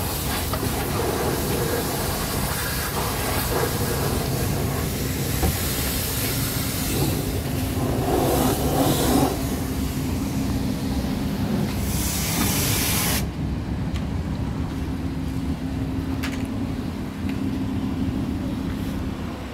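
Pressure washer spraying water: a steady hiss that cuts off suddenly about 13 seconds in, over a steady low hum.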